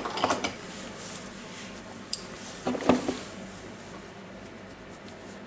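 Hands handling the opened nut gun's parts and wiring: a few light clicks at the start, a sharp tick about two seconds in, and a louder knock about three seconds in, with faint rustling between.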